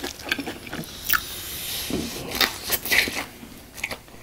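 Crunchy bites and chewing of a deep-fried, sugar-coated Korean hot dog with a mozzarella filling: scattered crisp crackles of the fried batter crust.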